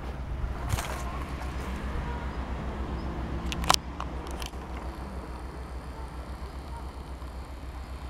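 Outdoor ambience: a steady low rumble with a few sharp clicks, the loudest about three and a half seconds in.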